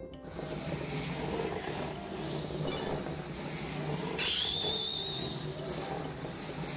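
Battery-and-neodymium-magnet coil train running through a bare copper-wire coil track, a steady rattling noise. About four seconds in, a rising whistle glides up to a wavering tone and holds for about a second.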